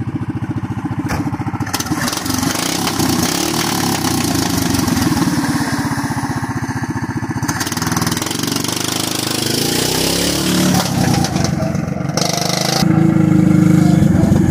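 Duromax 440 cc 18 HP single-cylinder engine in an MG roadster, running through a short 10-inch header with rapid, even exhaust pulses. Its speed picks up about two seconds in and again, louder, near the end.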